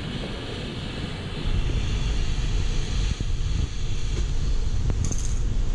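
Welding arc running steadily on a steel workpiece, with a low rumble under it; the noise grows louder about a second and a half in.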